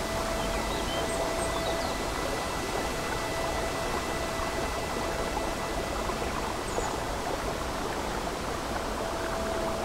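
Steady rushing of a babbling brook, with soft ambient music holding long notes underneath and a few faint bird chirps.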